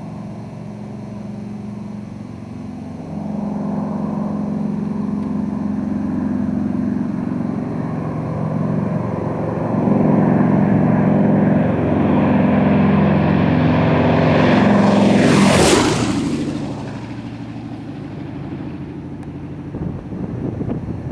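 Lockheed Lodestar's twin radial engines on a low flyby, growing louder as the plane approaches, passing close about three-quarters of the way through with a sharp drop in pitch, then fading as it flies away.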